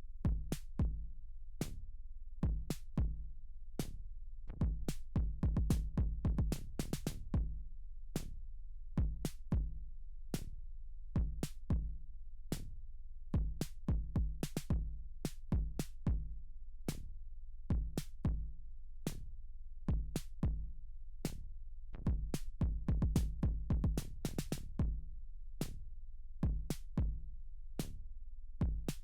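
Background electronic music with a steady drum-machine beat, about two beats a second, over a sustained bass line.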